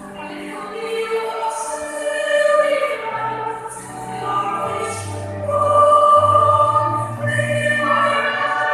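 Church pipe organ playing sustained chords with singing voices. Deep bass notes come in about three seconds in, and the music swells loudest around the middle.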